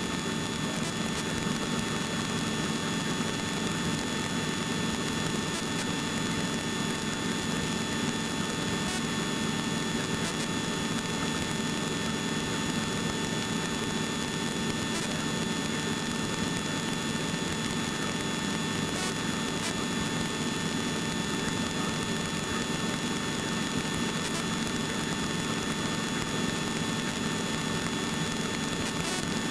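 Helicopter cabin noise in flight: steady engine and rotor drone with a constant high whine over it.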